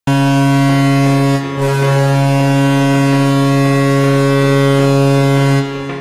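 Toronto Maple Leafs arena goal horn, a deep ship-style horn signalling a home-team goal. It sounds one short blast, breaks briefly about a second and a half in, then holds one long steady blast that cuts off near the end.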